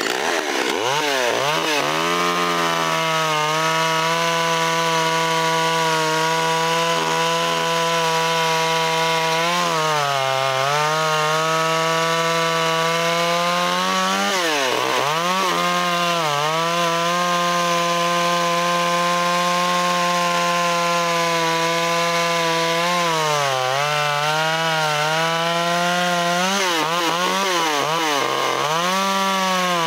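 Small vintage top-handle two-stroke chainsaw revving up and running at full throttle while cutting through a log. Its note sags under load and dips a few times, most deeply about fifteen seconds in.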